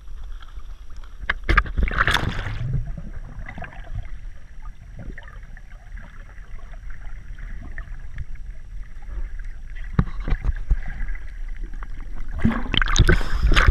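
Water heard underwater: a muffled, steady low sloshing rumble with scattered knocks. There is a loud rush of bubbles about two seconds in, and another near the end as a swimmer plunges into the water beside the microphone.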